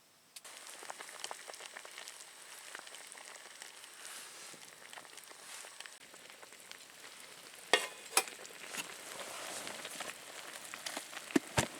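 Food sizzling and crackling in a hot frying pan, starting suddenly about half a second in, with a few sharp knocks of a utensil or pan later on.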